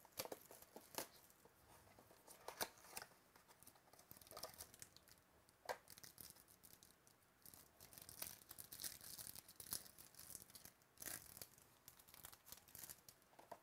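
Faint tearing and crinkling of the wrapper as a sealed mini box of trading cards is opened, then the cards are handled: a string of short, sharp crackles and rustles, thickest near the end.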